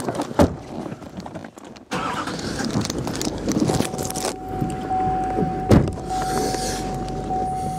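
Car running, with knocks and rustling from handling in the first seconds and a sharp knock past the middle. A steady high electronic tone, like a dashboard chime, comes on about halfway in and holds.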